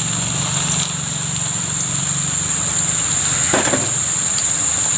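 Battered salak (snake fruit) pieces deep-frying in hot oil in a wok, the oil sizzling steadily.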